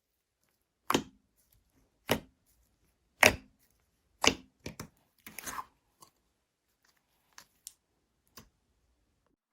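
Slime being squeezed and played with by hand, giving sharp popping clicks about once a second, then a short crackly run and a few fainter pops.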